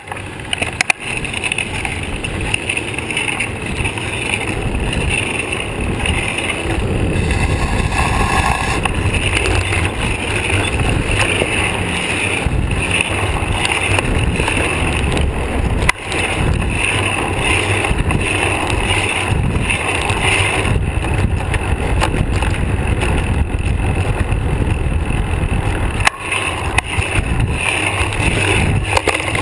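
Steady rush of wind and road noise from a moving bicycle, picked up by a seatpost-mounted GoPro in its housing, with a few sharp knocks along the way.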